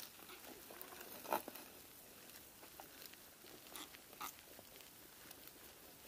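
A few faint, sparse clicks and knocks over a quiet background, the sharpest about a second and a half in and two softer ones around four seconds in.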